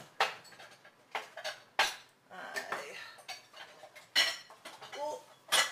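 Dishes and bowls clinking and knocking together as they are moved about to get a bowl out: a handful of separate sharp clacks, the loudest two in the second half.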